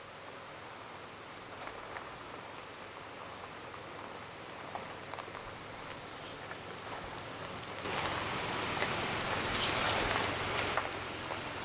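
Rain falling steadily, with scattered sharp drop ticks, growing louder for a few seconds from about two-thirds of the way in.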